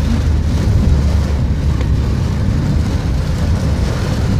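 Steady low rumble of a car driving on a wet road, heard from inside the cabin, with the even hiss of torrential rain on the car and its tyres on the water.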